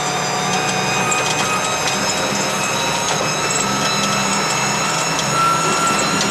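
Wheeled all-terrain vehicle's engine and drivetrain running under acceleration, with a steady mechanical whine that creeps slightly higher in pitch near the end.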